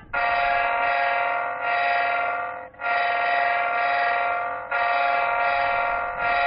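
Basuri telolet horn module sounding long, steady multi-tone horn blasts, about five in a row with short breaks between them, as one of its sound modes is played.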